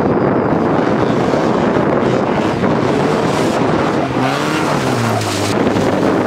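Stock 1990 Mazda Miata's 1.6-litre four-cylinder engine revving as the car slides on wet pavement, its pitch swinging down and then settling about four seconds in, over a loud steady rush of noise.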